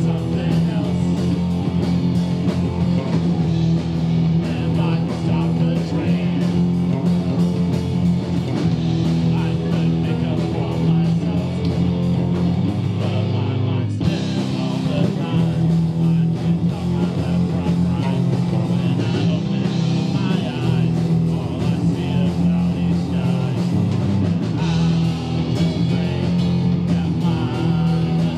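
Live rock band playing: electric guitar over a bass line and a drum kit keeping a steady beat.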